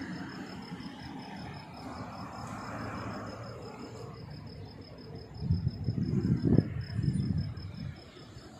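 Insect chirping, a steady high pulse several times a second, over a low outdoor rumble that swells louder for about two seconds a little past halfway.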